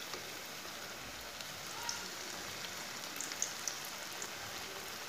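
Hot oil sizzling steadily as kababs deep-fry in a wok, with a few small pops and ticks.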